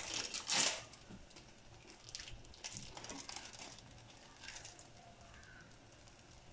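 Egg frying around bread slices in a nonstick pan: faint, scattered crackling and spitting, with a short rustle about half a second in.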